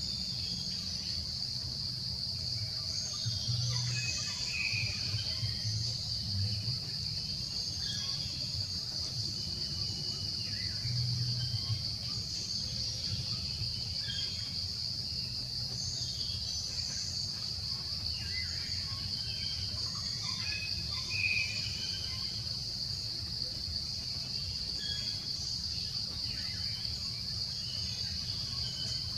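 Continuous high-pitched drone of insects, with scattered short bird chirps over it.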